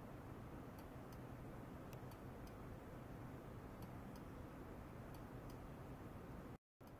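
Quiet low hum and room noise with faint, sharp high ticks at irregular intervals, one to three a second. The sound cuts out completely for a moment near the end.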